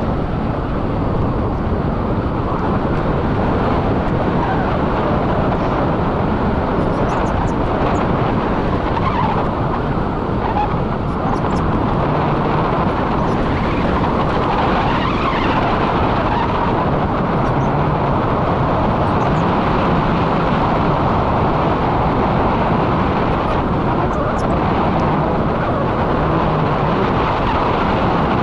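Steady rush of wind buffeting the microphone of a selfie-stick camera during a tandem paraglider flight.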